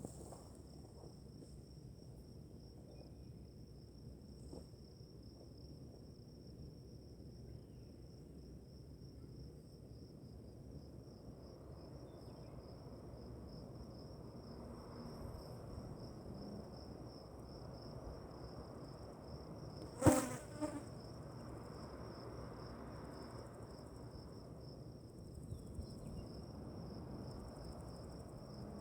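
Insects trilling steadily at a high pitch, a continuous, slightly pulsing chorus. About twenty seconds in there is one sharp knock, followed by a smaller one.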